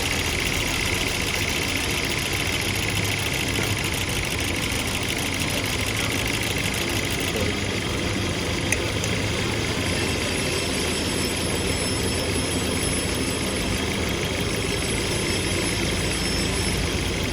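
2013 Hyundai Sonata engine idling steadily, the car brought in for a misfire.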